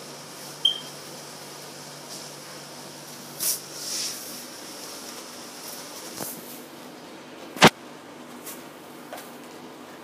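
Plastic blister pack of toys being handled: scattered crinkles and rustles, a brief high squeak near the start, and one sharp click about three quarters of the way through.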